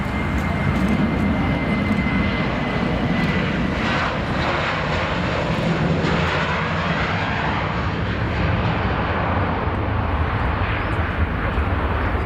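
Boeing 737-800 airliner's jet engines running at high power for take-off, a steady loud rumble with a hiss that grows brighter about four seconds in.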